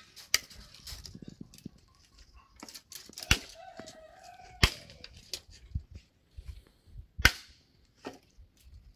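Four loud, sharp cracks, a third of a second in, at about three and a quarter seconds, about four and two-thirds and a little past seven seconds, with smaller clicks between them. Between the second and third cracks a hen gives a drawn-out, slightly falling call.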